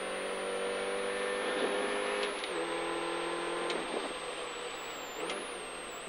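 Mini Cooper rally car's engine heard from inside the cabin, running steadily at speed. Its note drops in pitch about two and a half seconds in and turns uneven in the last couple of seconds.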